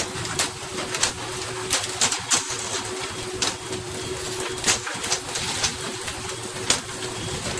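Steady rush of a fishing boat running through the sea with a faint hum, broken by irregular sharp slaps and clacks as hooked fish hit the deck and the fishing poles knock.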